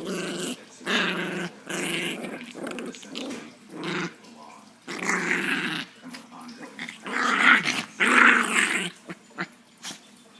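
Chihuahua play-growling in a string of rough growls, each about half a second to a second long, the loudest near the end. The growls sound angry, but the dog is playing.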